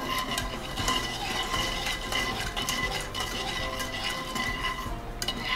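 Small metal wire whisk stirring sugar syrup in a stone-coated saucepan, with irregular light clicks and scrapes against the pan's sides and bottom as the sugar dissolves.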